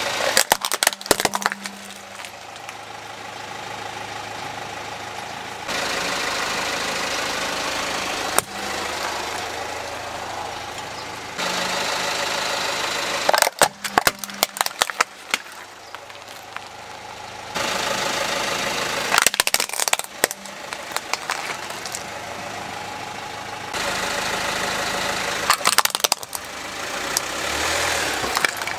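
Hard plastic toy vehicles cracking and snapping as a car tyre rolls over and crushes them, in four bursts of crackling about six seconds apart. The car's engine runs steadily underneath.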